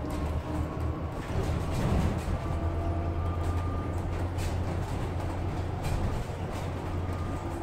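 Inside a moving city bus: a steady low engine drone and road rumble, with scattered light clicks and rattles.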